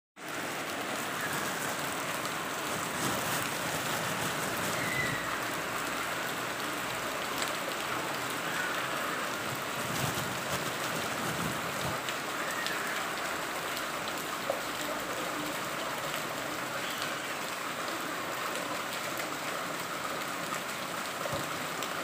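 Steady rain falling into shallow standing water on a paved surface, a dense even patter of drops.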